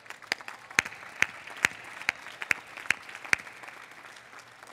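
Large crowd applauding outdoors, with one nearby person's sharp claps standing out at a steady two or so a second; the single claps stop a little after three seconds in and the applause dies away near the end.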